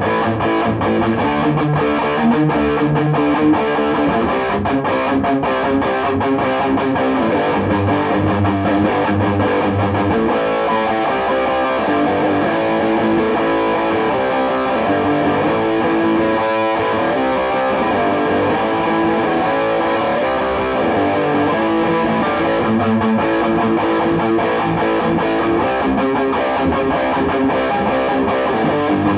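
Electric guitar played through a Peavey Bandit 112 combo amp, its TransTube solid-state lead channel in high-gain mode giving a distorted tone from the 12-inch speaker.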